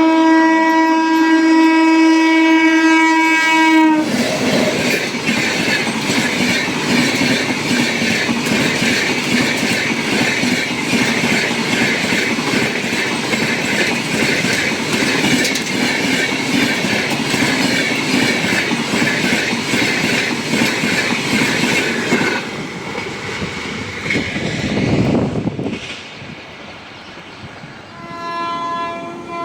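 Train horn blowing one long steady blast that cuts off about four seconds in, followed by a train passing at speed with rapid, regular clickety-clack from its wheels on the rail joints for about eighteen seconds before it dies away. Near the end another train horn starts sounding.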